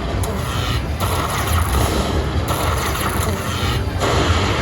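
Happy Lantern slot machine playing its game music and spin sound effects, which start afresh about every second and a half as the reels spin, over a steady low hum.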